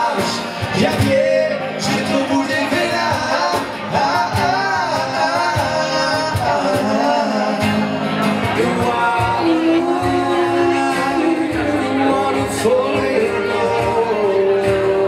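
Live acoustic band: a man singing over strummed acoustic guitars with a cajón keeping the beat.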